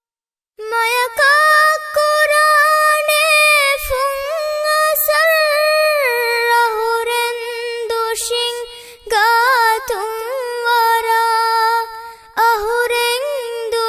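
A high solo voice singing a slow, heavily ornamented melody without accompaniment, its pitch sliding and wavering between held notes. It comes in about half a second in, with short breaths around the middle and near the end.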